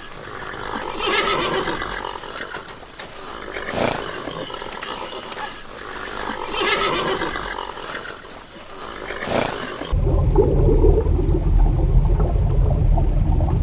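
Horse whinnying and snorting, in several rough calls a few seconds apart. About ten seconds in it cuts suddenly to a steady low rumble.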